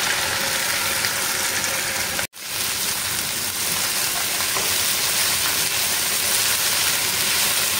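Chopped okra sizzling steadily in hot cooking oil in a frying pan as it is stirred with a spatula. The sizzle cuts out for an instant a little over two seconds in.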